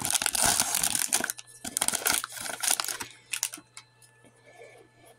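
Foil trading-card pack wrapper being torn open and crinkled by hand: dense crackling for about the first second, then scattered softer crinkles and clicks that die away about three and a half seconds in.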